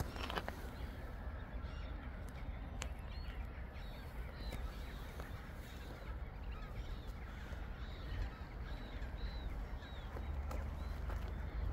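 A large flock of waterbirds on a lake calling, with many short, high calls overlapping throughout, over a steady low rumble.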